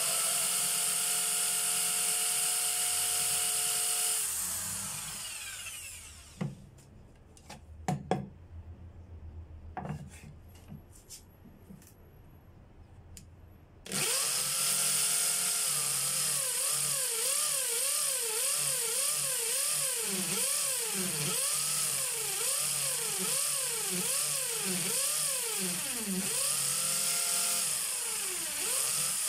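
Corded electric drill boring a hole through a wooden cutting board's handle. It runs steadily, then winds down with a falling whine a few seconds in, and a few light knocks are heard in the pause. About halfway through it starts again suddenly and runs on with its speed rising and falling over and over.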